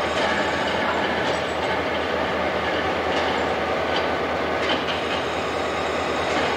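Diesel locomotive engine idling steadily inside an engine house, with a few faint clicks.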